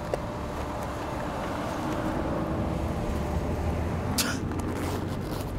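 Steady low rumble of wind on the microphone mixed with street traffic, with a short burst of noise about four seconds in.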